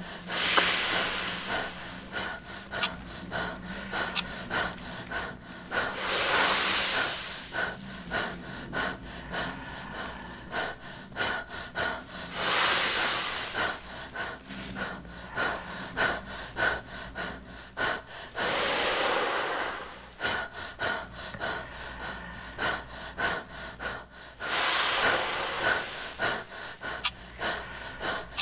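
A man exhaling hard into a large clear plastic bag to inflate it: five long blows, one about every six seconds, with the plastic rustling and crinkling between them.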